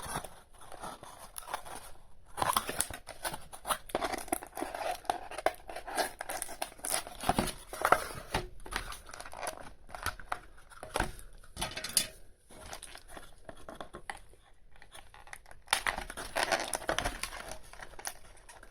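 A doll's retail packaging being handled and pulled open by hand: irregular rustling with many scattered clicks and snaps.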